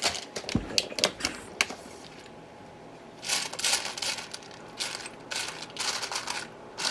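Loose LEGO plastic pieces clicking and rattling as they are handled and sifted through. Several sharp clicks come in the first second and a half, then bursts of clattering start about three seconds in.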